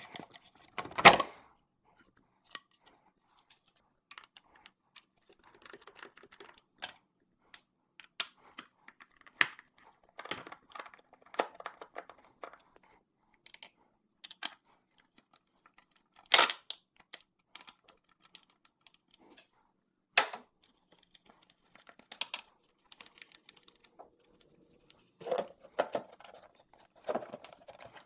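Sped-up hand work removing a car's air intake: scattered sharp clicks and knocks of tools and plastic intake parts, with rustling between. Three louder knocks stand out, one near the start and two past the middle.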